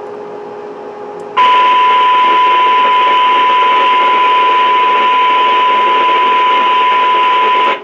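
A steady 1 kHz test tone over hiss comes on about a second and a half in and cuts off sharply near the end. It is the FM test signal passed through a VHF repeater whose receiver has just opened at about −120 dBm, with its transmitter keyed and putting out the tone as demodulated audio.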